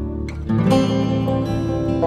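Background music led by plucked acoustic guitar, with a new chord coming in about half a second in.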